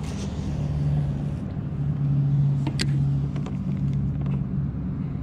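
A motor running steadily with a low, even hum, with a few light clicks about three seconds in.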